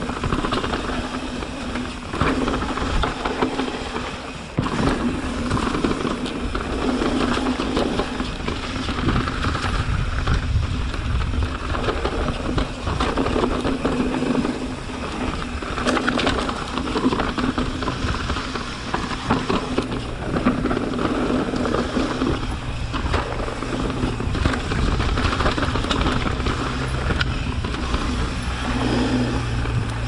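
Mountain bike ridden down a dirt trail: wind rushing over the camera's microphone, with the tyres rolling and the bike rattling, in continuous surges.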